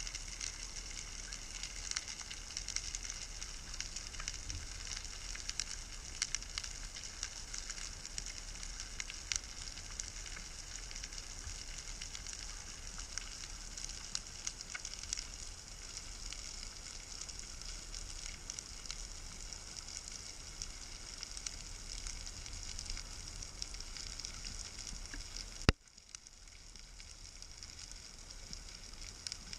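Underwater reef crackle heard through the camera housing: a steady sizzle of countless fine clicks. About three and a half seconds before the end a sharp click, after which the crackle is fainter.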